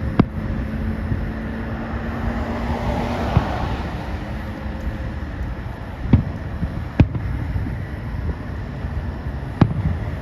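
Consumer fireworks going off, about five sharp, separate bangs at irregular intervals over a steady low rumble.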